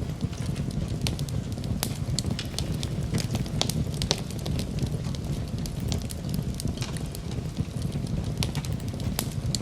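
Wood campfire burning: frequent sharp crackles and pops over a steady low rush of the flames.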